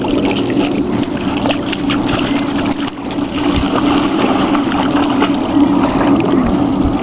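A dog wading and splashing in shallow lake water, scattered small splashes as it noses in the water for rocks, over a steady low hum.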